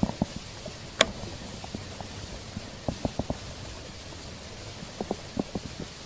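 Hands handling a baitcasting fishing reel and line: scattered small clicks and knocks in little clusters, with one sharp click about a second in, over a steady hiss.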